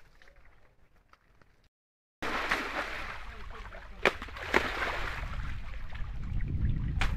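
Near silence, then, after a sudden cut about two seconds in, water splashing and sloshing in a concrete tank as a man wades in it washing custard apples, with a few sharp splashes.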